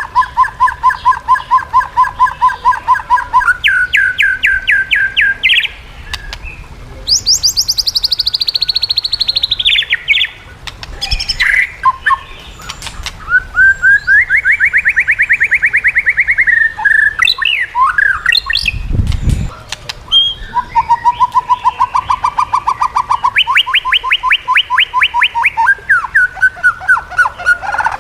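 White-rumped shama (murai batu) singing loudly and without pause: fast runs of identical repeated notes at steady pitches, switching abruptly between phrases, with a falling run of high notes early on. A brief low thump about two-thirds of the way in.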